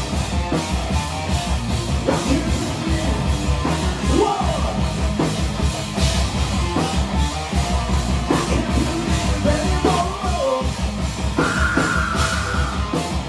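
Metal band playing live, with drum kit and amplified instruments. A high note is held for about two seconds near the end.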